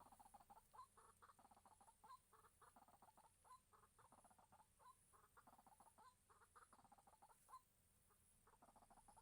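Faint white-breasted waterhen calling: rapid clucking notes in repeated phrases, with a sharper note about every second and a bit.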